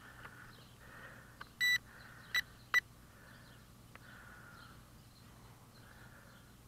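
Syma X5C quadcopter's handheld transmitter beeping: one longer beep about a second and a half in, then two short ones, the start-up and binding tones before flight.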